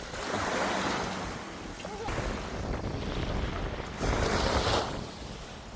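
Sea waves washing in, swelling at the start and again about four seconds in, with wind buffeting the microphone.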